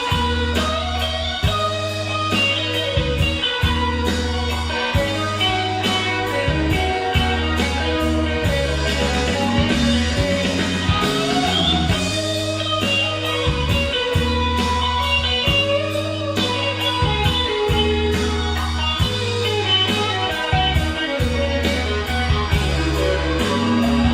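Instrumental rock-ballad passage with no vocals: guitar carrying the melody over bass and drums, with a steady beat throughout.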